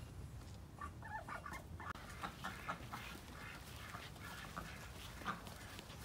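Muscovy duck giving a run of short, soft clucking calls, repeated several times a second in places.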